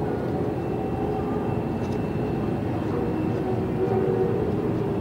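Experimental ambient piece: a dense, steady rumble with faint held tones over it, blending field recordings with synthesizer drones.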